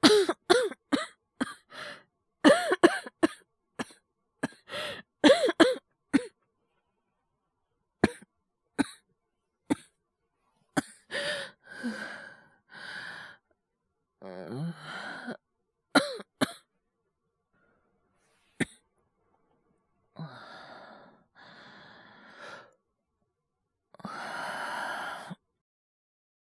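A voice actor performing a young man's cough from a feverish cold: a rapid fit of harsh, voiced coughs for about six seconds, then scattered single coughs, and finally long, heavy breaths near the end.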